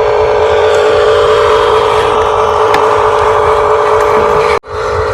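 Steady mechanical whine of radio-controlled toy construction vehicles' electric motors and gears running, with a brief dropout near the end.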